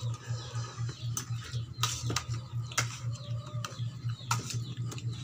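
Ceramic plates and utensils clicking and clinking a handful of times as food is served at a table, over a steady low hum.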